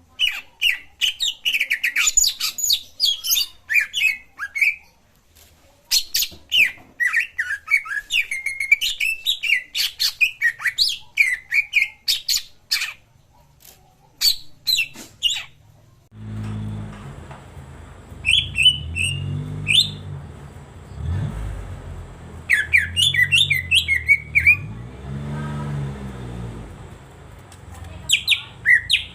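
Common iora (cak ijo) singing in rapid bursts of sharp chirps and twitters, dense for the first half and then in short phrases a few seconds apart. A low wavering hum comes in about halfway through.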